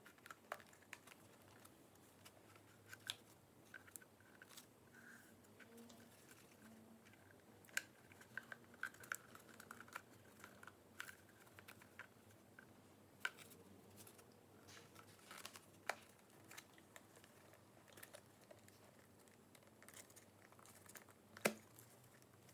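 Faint, scattered clicks and taps of small parts and tools being handled, with one sharper click near the end, over quiet room tone.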